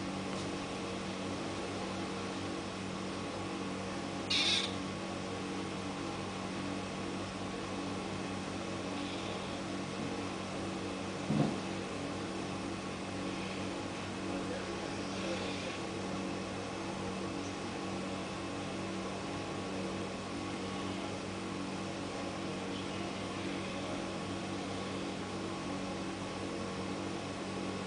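Steady machine-like hum with a few fixed pitches and a hiss beneath it. A short high hiss comes about four seconds in, and a single knock comes near the middle.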